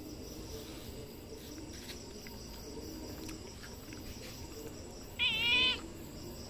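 Calico cat giving a single short meow about five seconds in, its pitch wavering slightly.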